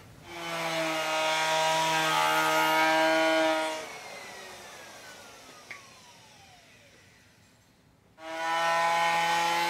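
Router fitted with a 45-degree chamfer bit running at a steady pitch as it routes the edge of a hole in a hardwood board. A little under 4 s in it is switched off and winds down with a slowly falling whine, and about 8 s in it is started again and runs steadily.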